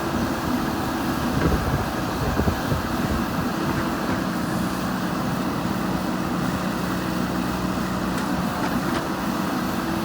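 JCB 3DX Super backhoe loader's diesel engine running steadily while working, with a couple of short knocks in the first few seconds.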